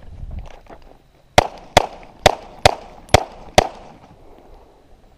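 Six pistol shots fired in quick succession, roughly half a second apart, the first about a second and a half in.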